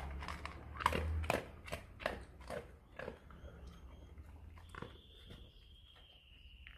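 A dog crunching dry kibble, with irregular bites about two a second at first and then more spaced out.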